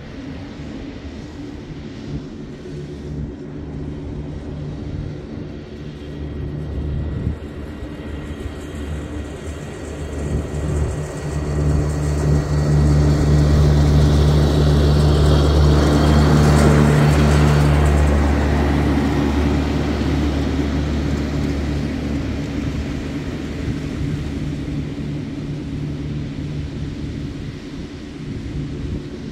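Ride-on lawn mower engine running steadily as the mower drives across the field. It grows louder as it comes close, peaking about halfway through, then fades as it moves away.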